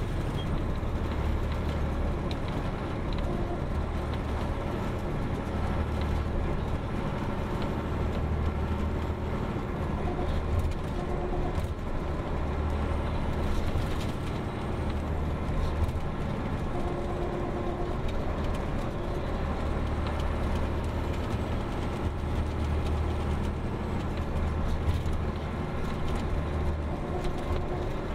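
Detroit Diesel Series 60 inline-six diesel of an MCI D4500 coach running, heard inside the passenger cabin as a steady low drone that shifts pitch a little now and then.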